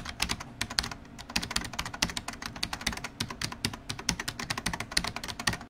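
Computer keyboard typing sound effect: rapid, irregular key clicks, about eight to ten a second, that stop abruptly.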